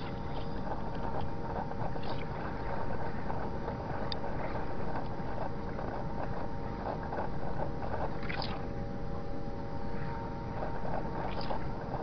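Ground vibration from a seismometer, sped up 120 times so that it can be heard. Several steady held tones, which the uploader takes for the giant water pumps of the Bohernabreena Waterworks running continuously, sound over a rushing noise bed from the secondary microseism. Many short crackles of human-generated vibration, such as road traffic, run through it, with a few brief higher chirps.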